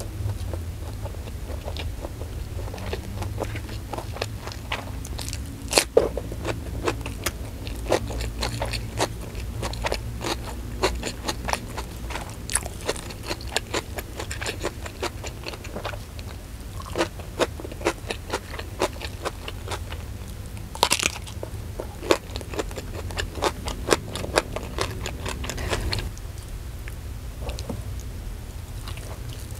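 Close-miked eating sounds: chewing and crunching with many sharp, wet mouth clicks as rice and fried chicken with sambal terasi are eaten by hand. Fingers scrape sambal from a stone mortar partway through, and the clicking thins out near the end.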